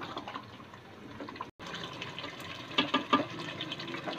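A spoon stirring spinach and potatoes in a watery masala in an aluminium pot: wet sloshing and bubbling, with the spoon knocking and scraping against the pot again and again.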